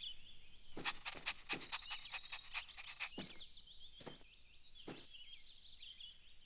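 Faint cartoon garden ambience of birds chirping, with a scatter of short taps and thumps through the first few seconds.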